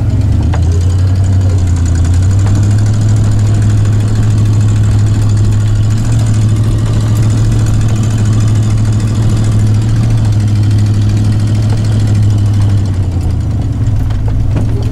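Pickup truck engine running while driving, a steady low drone that shifts slightly in pitch about a second in and again near the end.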